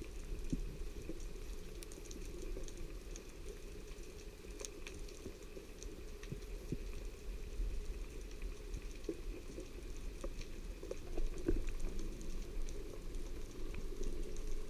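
Underwater ambience: a steady muffled hiss with scattered faint clicks and crackles.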